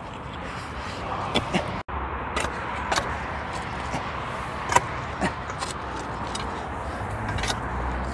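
Long-handled spade digging into dry, stony soil: irregular scrapes and sharp strikes of the blade in the earth, over the steady hum of passing road traffic.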